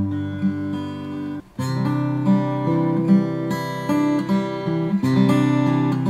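1965 Guild D50 dreadnought acoustic guitar being played, chords ringing, recorded through a camera's built-in microphone. The sound breaks off briefly about a second and a half in, and the playing picks up again with a new chord.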